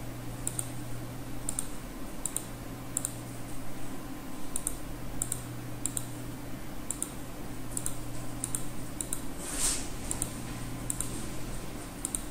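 Computer mouse clicking, a click or quick pair of clicks every half second to a second, over a steady low electrical hum. A short hiss about ten seconds in.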